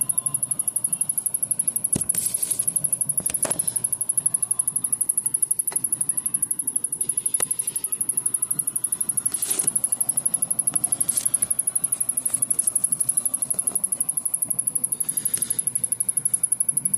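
Samsung rear projection television's power circuitry giving off a fast, high-pitched ticking, with a few sharp clicks about two, three and a half and nine and a half seconds in. The ticking is the sign of a short somewhere in the set that has not blown its internal fuses, leaving the main power board unable to start fully.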